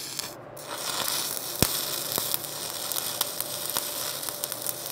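Stick welding arc from a 1/8-inch 70-30 copper-nickel electrode at 100 amperes, crackling and sizzling steadily with many sharp pops, one louder pop about a second and a half in.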